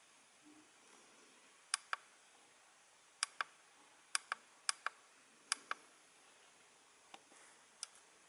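Small plastic push buttons on AOMWAY Commander FPV goggles clicking as they are pressed and released, five quick press-and-release pairs followed by two single clicks near the end, while the display is switched between 16:9 and 4:3.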